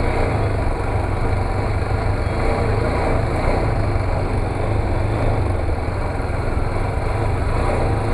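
Yamaha Fazer 250's single-cylinder engine idling at low, even revs, with no throttle blips, heard from the rider's seat.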